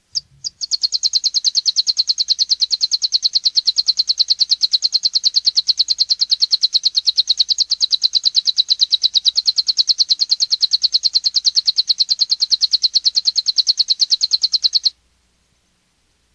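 Saffron finch (canário-da-terra, magnata de Guariba song type) singing its 'metralha' machine-gun song: a couple of short notes, then one very fast, even, high trill held for about fourteen seconds before it stops abruptly.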